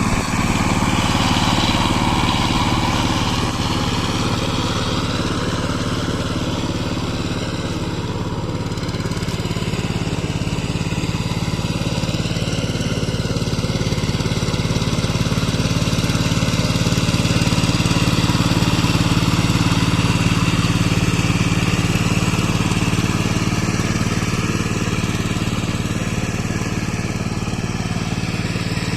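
Power tiller engine running steadily, working a rotavator through mud.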